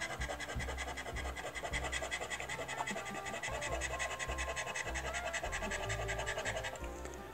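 A Lotto scratch-off card having its scratch-off coating scraped away with a round disc-tipped scratcher on a stick, a fast, even rasping of short strokes that stops shortly before the end.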